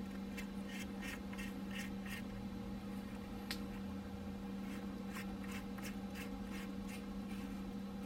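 Light clicks and scrapes of a Lew's Laser Speed Spool baitcasting reel being fitted and tightened onto a fishing rod's reel seat by hand. There is a sharper click about three and a half seconds in and a cluster of clicks over the second half, over a steady low hum.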